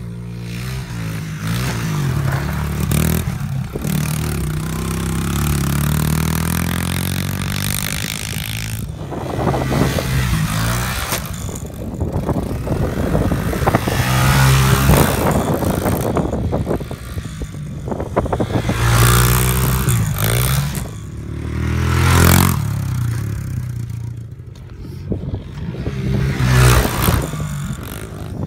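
Honda CRF70 pit bike's small single-cylinder four-stroke engine revving up and dropping back again and again as it is ridden round a dirt track, with several rushes of noise as it passes close.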